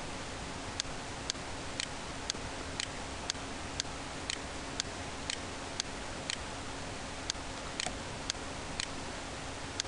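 Steady, even ticking at about two ticks a second, like a clock, over a faint steady hum.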